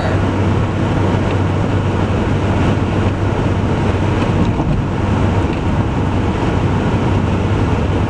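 Steady road and engine noise inside a moving car, an even rush with a constant low hum underneath.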